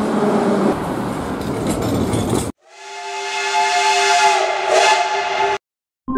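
An arriving metro train's steady rumbling noise, cut off abruptly about two and a half seconds in. A steam locomotive's whistle then sounds several steady tones together for about three seconds, with steam hissing, before it also cuts off abruptly.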